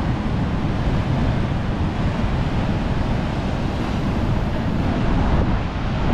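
Surf breaking against the foot of a sea cliff, mixed with wind buffeting the microphone: a steady, deep rushing noise with no breaks.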